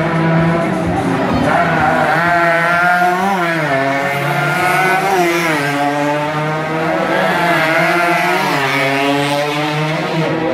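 Racing motorcycle engines revving hard over a steady lower engine note, the pitch climbing and then falling back sharply several times, about every two seconds.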